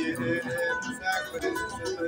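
Kora, the West African calabash harp, plucked in a steady flowing run of ringing notes, several a second.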